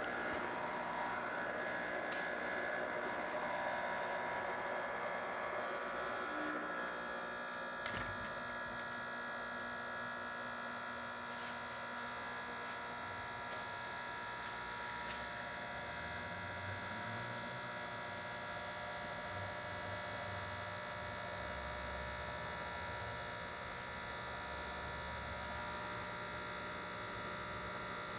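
Quick Mill Andreja espresso machine's newly replaced water pump running steadily while pulling an espresso shot, a continuous buzz. There is a single click about eight seconds in.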